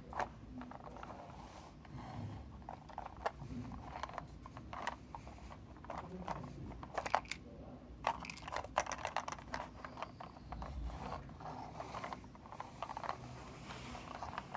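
Toy truck and trailer being handled and pushed on a carpet: irregular small clicks, taps and rattles of the toy's parts, with light scraping.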